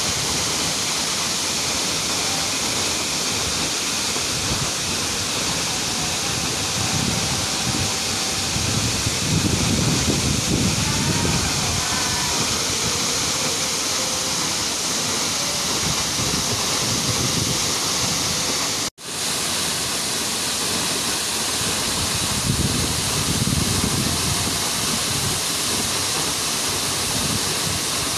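A tall waterfall, about 30 metres high, pouring steadily into a rocky plunge pool: a constant full rush of falling water. The sound drops out for an instant about two-thirds of the way through.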